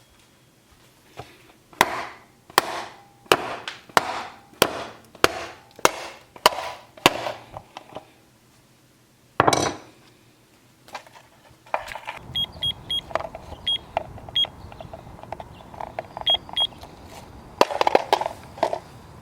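A Freddy Fazbear alarm clock being smashed: a run of sharp blows, about one and a half a second, then one heavy blow near the middle. After that, a steady low hum with short high beeps and a few more knocks, the strongest near the end.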